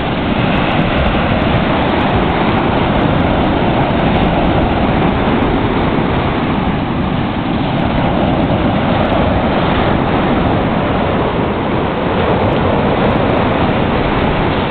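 Surf washing up onto a sandy beach: a steady, loud rush of noise with no breaks.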